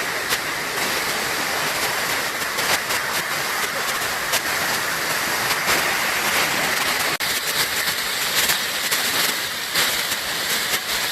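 Waterfall: a steady rush of falling water that cuts out for an instant about seven seconds in.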